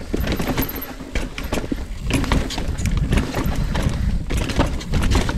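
Commencal Meta AM 29 mountain bike descending a rough dirt trail: wind rumble on a chest-mounted camera's microphone, tyres on dirt, and an irregular rapid clatter of knocks and rattles from the bike over bumps and roots.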